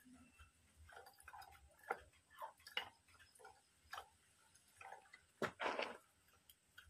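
Faint, irregular metal clicks and ticks as a Kubota MU5702 tractor's tie rod end is turned by hand on the threaded rod of its hydraulic steering cylinder. A louder scraping rustle comes about five and a half seconds in.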